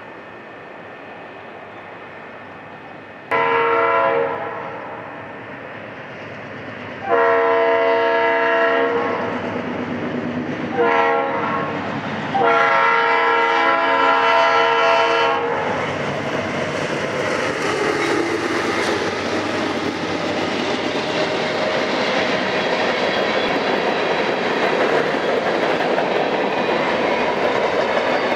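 Norfolk Southern freight train's lead locomotive, a former Conrail GE C40-8W, sounds its air horn in four blasts, the third short and the last held longest, the grade-crossing warning pattern. Then the locomotives and covered hopper cars roll past close by with steady wheel-on-rail rumble and clickety-clack.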